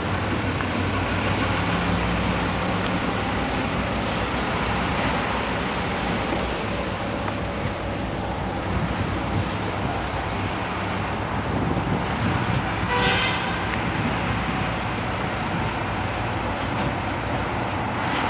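Multi-section M62-family diesel locomotive, with two-stroke V12 diesels, running as it moves slowly past, a steady engine rumble. About two-thirds of the way through a short toot sounds once.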